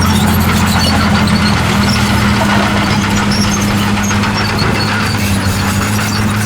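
Diesel engine of heavy earthmoving equipment running steadily under load, its low hum shifting slightly in pitch about a second and a half in.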